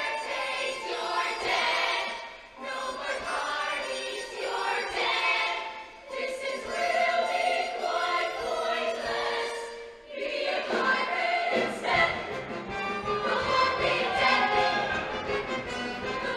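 Show choir singing in harmony, many voices together with accompaniment; a deeper, pulsing low end comes in about eleven seconds in.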